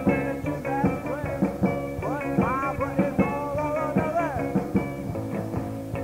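Lo-fi art punk band music dubbed quietly onto cassette, with tape hiss, pitches sliding up and down over an even beat.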